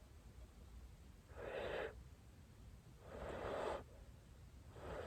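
A person breathing out heavily twice, one short breath and one longer one, as if from the cold.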